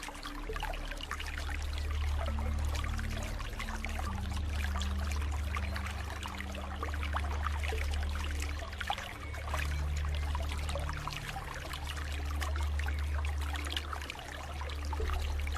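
Flowing water trickling and splashing steadily. Under it sits a low ambient music drone whose held notes change every few seconds.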